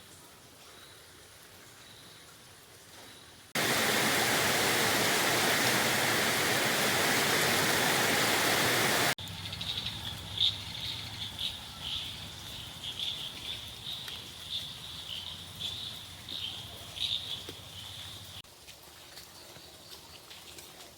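Outdoor nature sounds cut together. After a few seconds of faint ambience, a loud, steady rushing of water runs for about five seconds and cuts off abruptly. High, irregular chirping calls from small animals then follow for about nine seconds before fading to faint ambience.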